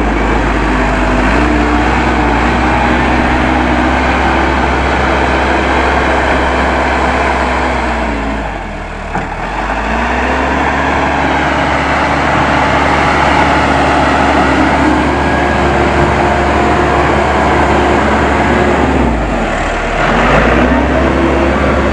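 Case 580M backhoe loader's four-cylinder diesel engine running steadily, its pitch sagging and picking back up twice, about eight and a half seconds in and again near the end, as the machine takes and sheds load.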